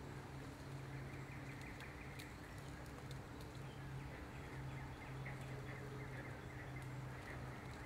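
Woodland ambience: a steady low hum under a haze of background noise, with faint high bird chirps and a few small clicks.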